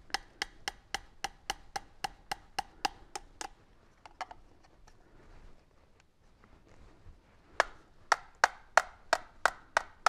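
Sharp hard plastic taps, about four a second, then a short pause and a second, louder run of taps: the car vacuum's clear plastic dust bin being knocked against a digital scale's tray to empty out the collected dirt.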